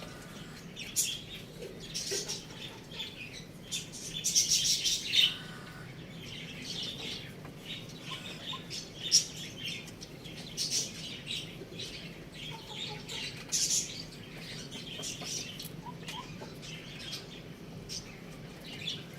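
Small birds chirping and chattering in quick, irregular short calls, with a denser, louder run of calls about four to five seconds in.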